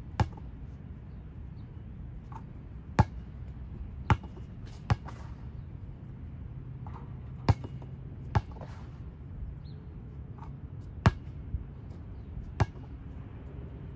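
Basketball thudding on an outdoor concrete court, about eight sharp single hits spaced a second or more apart, over a steady low background rumble.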